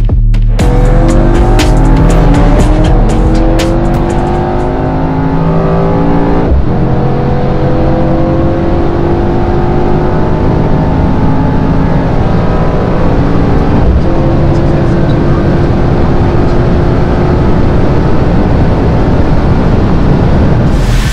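Mercedes-AMG E63 S's 4.0-litre twin-turbo V8 accelerating hard, its pitch climbing in long steady sweeps broken by two upshifts, about six and a half and fourteen seconds in.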